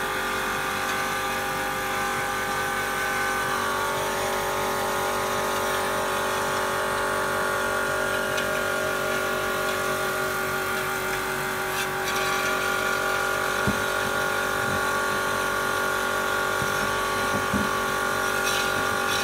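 Electric air compressor running steadily with a constant motor hum. Its intake is drawing used oil out of a snowmobile's four-stroke engine sump through a hose into the compressor's tank.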